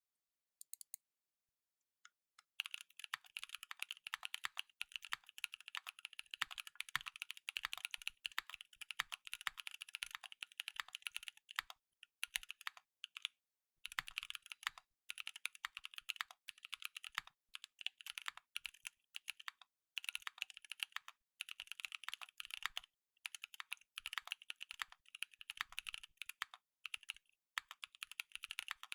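Typing on a custom Brutal60 60% mechanical keyboard with stock Anubis switches, an FR4 plate in an O-ring top mount, and GMK keycaps: a fast, continuous run of key clacks. It starts about two and a half seconds in and breaks off briefly a few times.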